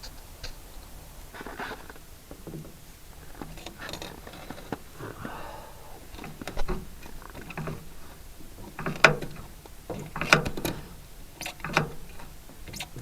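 Irregular clicks, knocks and scrapes of hands and tools working at stiff, stuck parts around a tractor's engine heater, with a few louder knocks in the second half.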